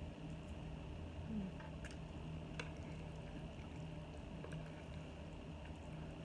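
Faint eating sounds: chewing a mouthful of black bean noodles, with a few light clicks of metal chopsticks, over a steady low hum.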